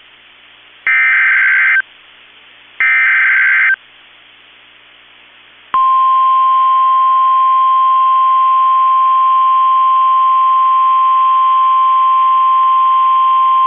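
NOAA Weather Radio emergency alert: the last two of the three screeching SAME digital header bursts, about a second each. About 6 s in, the steady 1050 Hz warning alarm tone begins, signalling that a tornado warning is about to be read.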